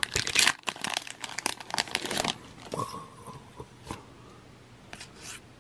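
A foil Pokémon booster pack wrapper crinkling and tearing open for about two seconds. It then goes quieter, with a few faint ticks as the cards are handled.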